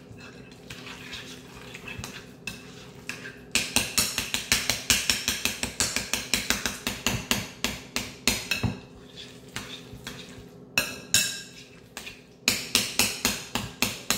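A metal utensil knocking rapidly against a bowl as egg salad is mixed and chopped, about five strikes a second. It is light at first, gets louder a few seconds in, and breaks off twice briefly before going on.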